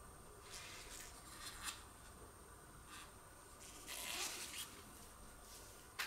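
Faint handling noise: rubber-gloved hands shifting and rubbing white plastic vacuum extension pipes, with a few light clicks and a longer rustle about four seconds in.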